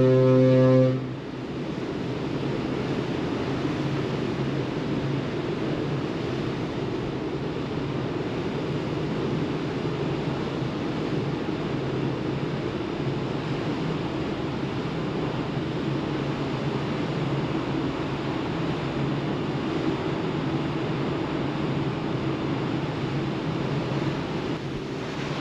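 A deep ship's horn blast cuts off about a second in. After it comes the steady rush of wind and sea heard on the open deck of a ferry under way, with a faint low hum beneath.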